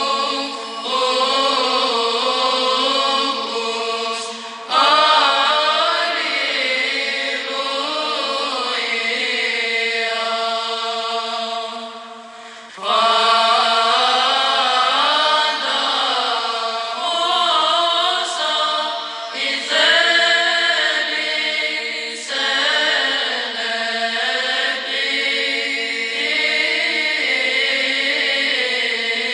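Background music: sung chant in the Byzantine style, a moving vocal line over a steady held drone note, with a short break between phrases about twelve seconds in.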